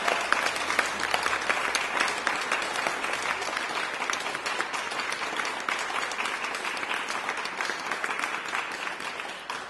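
A group of people applauding, dense steady clapping that gradually gets quieter.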